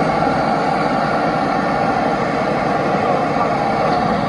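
Steady, loud city street noise with vehicles running by.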